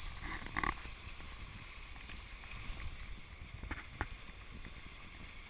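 Skis sliding over packed snow: a soft, steady hiss with a low wind rumble on the microphone, and a faint click about four seconds in.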